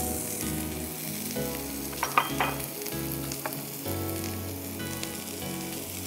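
Boiled carrots and cauliflower frying in hot oil in a frying pan, a steady sizzle.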